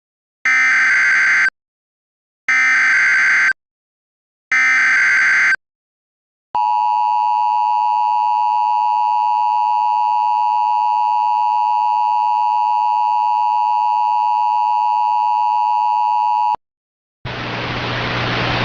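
Emergency Alert System tones: three one-second bursts of SAME header data, a second apart, then the two-tone EAS attention signal held steady for about ten seconds and cut off abruptly. A rising hiss of noise starts just before the end.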